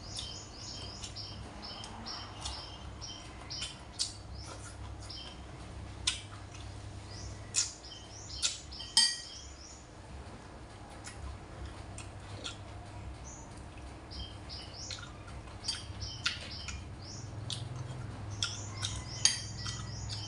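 Spoon and chopsticks clinking against a ceramic rice bowl during a meal, with a few sharp clinks around the middle. Small birds chirp in quick runs of short high notes at the start and again near the end, over a low steady hum.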